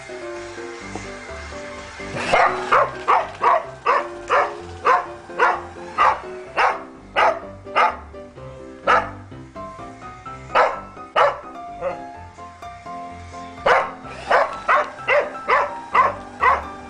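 Cardigan Welsh Corgi barking repeatedly, sharp barks about two a second, starting about two seconds in, breaking off for a couple of seconds near two-thirds of the way through and then resuming faster, over background music.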